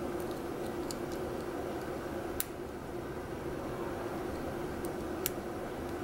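Faint metallic ticks of a hook pick and tension wrench working the spool pins in a Commando padlock's five-pin core. The ticks come several times in the first second and a half, then as two sharper clicks about two and a half seconds in and near the end. A steady low hum runs underneath.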